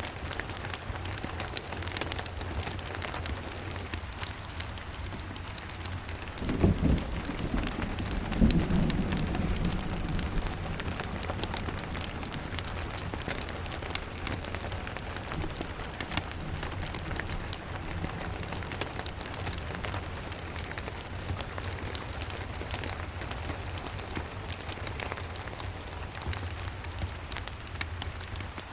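Steady rain, with a thunderclap about six and a half seconds in and a low rumble that swells again and dies away over the next few seconds. Faint fireplace crackles run underneath.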